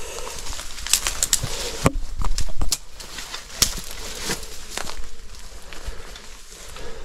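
Footsteps and rustling through dry weeds and rubble: a string of irregular sharp crackles and snaps, with a brief low rumble about two seconds in.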